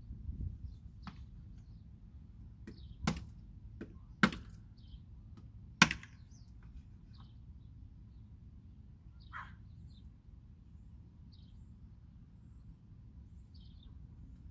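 Knife chopping through chicken on a hard surface: three sharp chops a little over a second apart, with a few lighter ticks. Faint chirps of small birds come and go.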